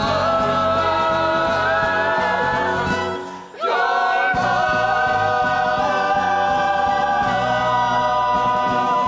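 A cast of young performers sings in chorus with musical accompaniment, holding a long chord. The sound dips briefly about three seconds in, then a second, sustained chord is held and cuts off near the end.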